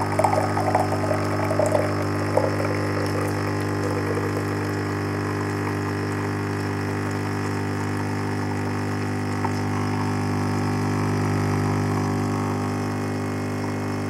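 Bosch Tassimo pod coffee machine's pump running with a steady hum as it dispenses milk from a milk pod into a mug. The splash of the stream into the mug is heard over the first couple of seconds.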